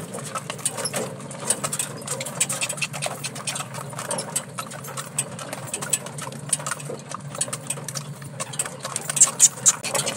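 Horse-drawn cart rolling along a gravel track: a dense, steady clatter of hooves, rattling harness and shafts, and wheels on gravel.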